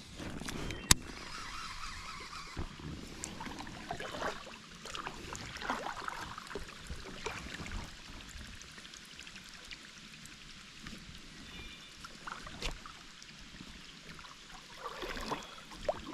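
Kayak on a creek: faint water splashing and lapping with scattered light knocks and clicks.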